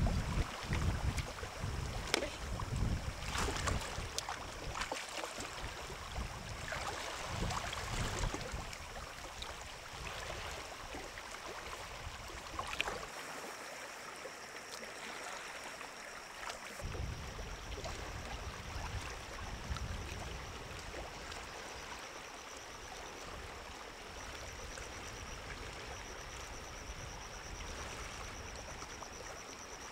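Moving water sloshing and trickling, with a few sharp knocks in the first several seconds. A faint, thin high whine comes and goes from about halfway on.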